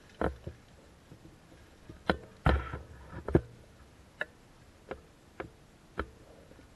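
Airsoft gun fired in single shots, a sharp snap about every half second to a second at irregular intervals.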